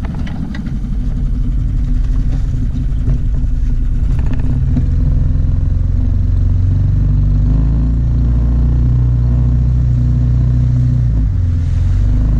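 Small outboard motor running on a folding boat under way. It rises over the first couple of seconds as the throttle is opened, then runs steady. A few knocks come near the start.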